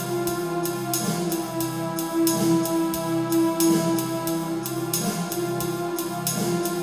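Background music with a steady drum beat over sustained held notes.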